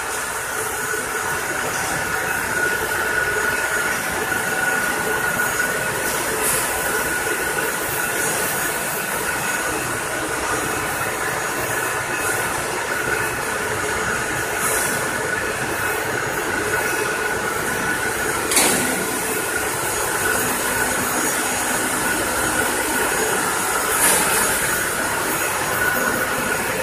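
Automatic continuous frying line running: steady machinery noise from its conveyors and motors, with a constant whine and hiss. Two brief knocks, one a little past the middle and one near the end.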